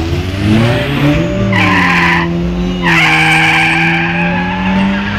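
Car engine revving up, then tyres squealing in two bursts: a short one about a second and a half in, and a longer one from about three seconds in.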